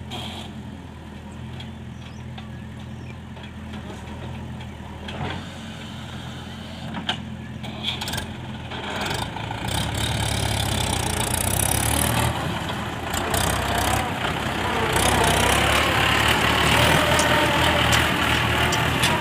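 JCB 3DX backhoe loader's diesel engine running steadily, then growing louder about halfway through as it works, with a few sharp knocks in between.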